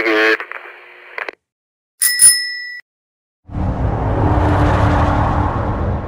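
The tail of a walkie-talkie voice transmission breaks off into fading static, and about two seconds in comes a short click with a high ding. Then a turbine bike sound effect starts: a loud, steady rushing noise over a low rumble that runs about three seconds and fades out near the end.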